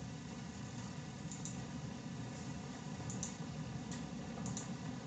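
Steady low background hum with several faint, short clicks, most of them in quick pairs, about a second or so apart.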